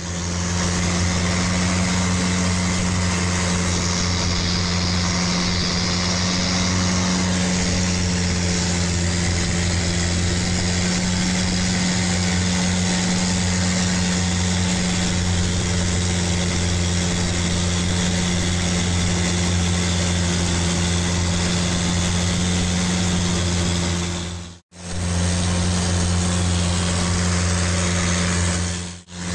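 Long-tail boat engine running steadily under way, a constant low drone with a hiss over it. The sound drops out for a split second twice near the end.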